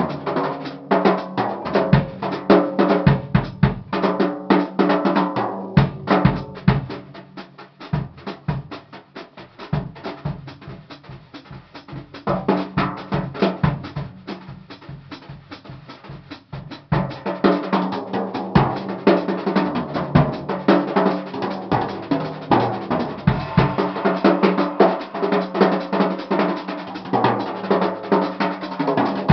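Pearl drum kit played with brushes in a jazz brush solo: quick, dense strokes that soften to a quieter passage about eight seconds in and build back up to full volume around seventeen seconds.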